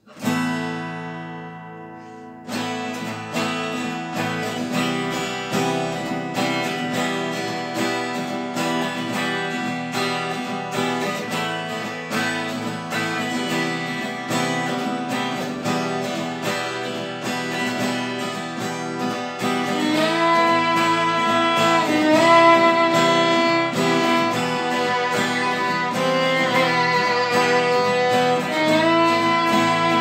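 Instrumental piece on acoustic and electric guitars with violin: a chord rings out at the start, then the guitars settle into a steady strummed and picked rhythm. About two-thirds of the way through, the violin comes in over them with long notes that slide up in pitch.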